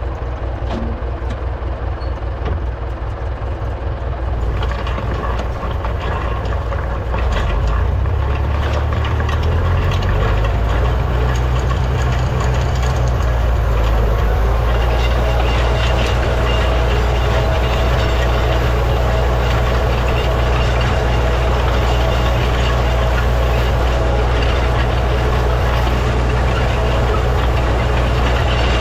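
Farm tractor engine running steadily under load while pulling a hay tedder across the field. It speeds up and gets louder a few seconds in, then holds an even, steady note.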